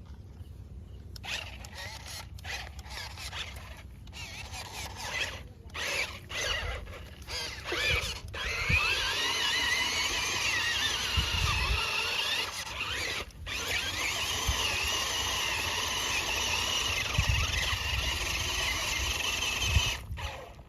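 Electric motor and drivetrain of an off-road RC car whining, first in short bursts with brief stops, then running steadily from about eight seconds in, with one short break, until it cuts off near the end.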